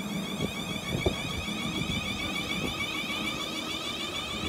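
South Western Railway Class 444 Desiro electric multiple unit pulling away, its traction equipment giving a steady multi-tone whine with fainter rising tones above, over a low rumble. A brief knock about a second in.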